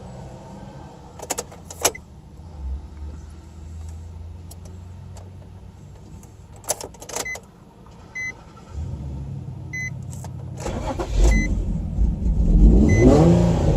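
2006 Nissan 350Z's 3.5-litre V6 cranking and catching after a very hard start, then running unevenly as it revs up and down with the gas pedal being pumped. A few clicks come first, and a short beep repeats about once a second during the cranking.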